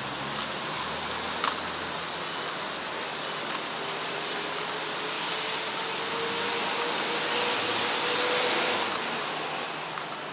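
Street traffic noise: a steady hum of passing cars, swelling as one vehicle comes close about eight seconds in and then fading.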